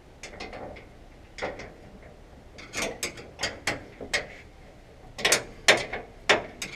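Hand tools working on the bolts of a combine concave's keystock grate: a run of sharp metallic clicks and clinks in irregular clusters, like a ratchet wrench turning and tools striking steel, loudest near the end.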